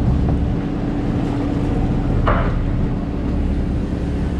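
Fishing boat's engine and deck machinery running steadily: a low hum with a constant drone above it. About two seconds in there is a brief rush of noise.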